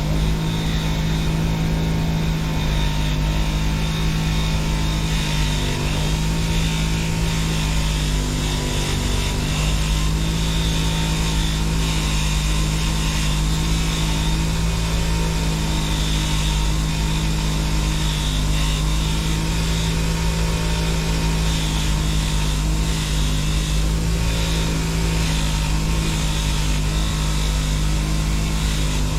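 Motor-driven wire wheel running steadily with a low hum, while an old survival knife's blade is brushed on it to strip rust and grime.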